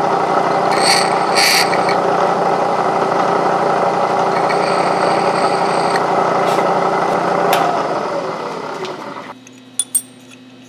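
A milling machine's spindle runs with a steady whine while a drill bit is lightly touched into a brass 3D printer nozzle to re-cut its inner chamfer. This gives short higher-pitched scraping about one and one-and-a-half seconds in, and faintly again around the middle. About eight seconds in, the spindle is switched off and winds down, falling in pitch, followed by a couple of light metallic clicks near the end.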